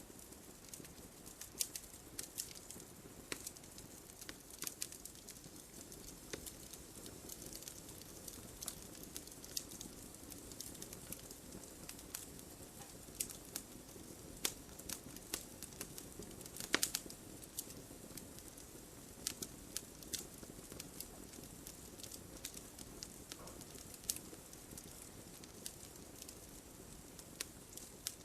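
Wood fire crackling: a steady low rush of flames with irregular sharp pops and snaps, one louder pop about two thirds of the way through.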